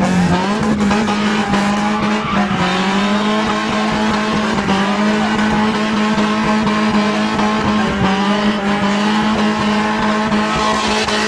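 BMW E30 3 Series engine held at high, nearly steady revs while the car spins in donuts, with the rear tyres squealing and scrubbing on the tarmac.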